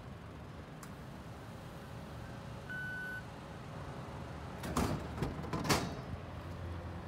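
A vending machine's contactless card reader gives one short, steady beep. A couple of seconds later two loud clattering knocks follow as the drink drops into the machine's outlet.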